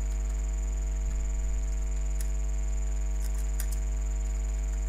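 Steady electrical mains hum picked up by the microphone, with a faint high whine over it, and a few faint computer-keyboard keystroke clicks about two seconds in and again around three and a half seconds in.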